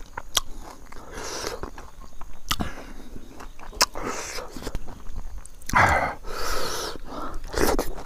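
A person chewing a mouthful of rice and pickle with wet mouth smacks and sharp clicks, eating by hand. A louder rushing mouth or breath sound comes about six seconds in.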